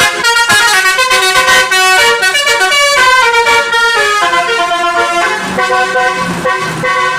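Basuri musical horn on a vehicle playing a loud, quick melody of stepping notes, several tones sounding together.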